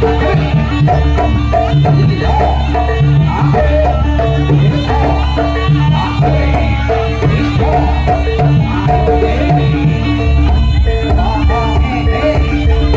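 Javanese jaranan ensemble music: hand drums beating a steady rhythm under sustained tuned gong tones, with a wavering melody line above.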